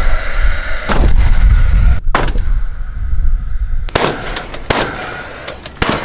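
Paslode cordless gas-powered nailer firing nails into a wooden post: about five sharp bangs at uneven intervals.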